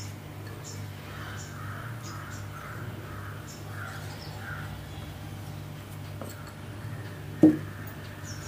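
A crow cawing repeatedly, about two caws a second, stopping about halfway through, over a steady low hum. A single sharp knock sounds near the end.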